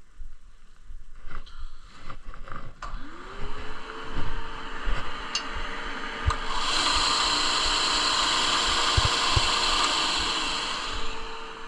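An electric saw's motor spins up to speed after a few handling knocks, then cuts into wood for about four seconds, and keeps running after the cut.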